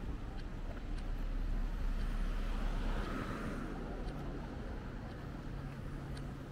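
City street traffic: a vehicle passes, its noise swelling to a peak about three seconds in and then easing off, over a steady low rumble.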